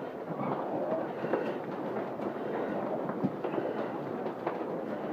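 Fire burning inside a room: a steady rushing noise with scattered crackles and pops.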